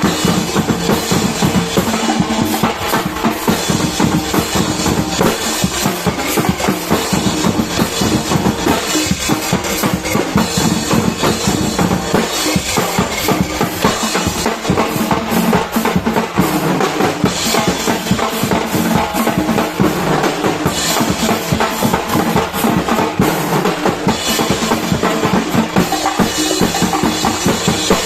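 A drumbeater group playing a dense, continuous beat on bass drums and snare drums.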